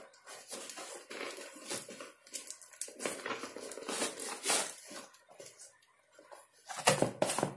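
Cardboard shipping parcel being torn open and handled: irregular rustling, crinkling and tearing of paper and cardboard, louder near the end.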